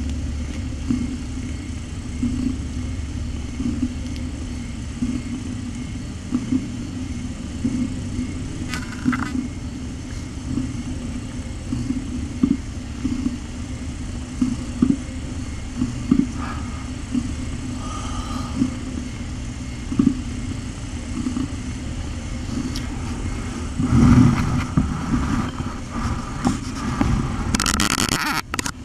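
Domestic mother cat purring steadily and close to the microphone while her kittens nurse. Louder shuffling noise near the end as the kittens shift against her.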